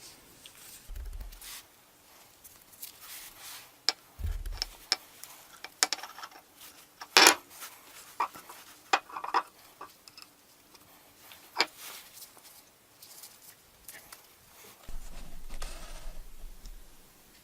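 Scattered sharp metal clinks and taps, the loudest about seven seconds in, with a few dull handling thumps and a longer low rumble near the end.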